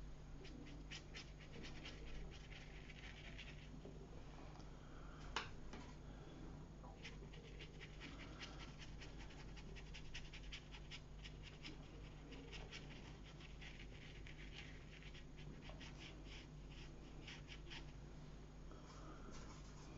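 Faint, quick, irregular scratching of a watercolour brush being dabbed and stroked across the paper, with one sharper tap about five seconds in. A low steady hum runs underneath.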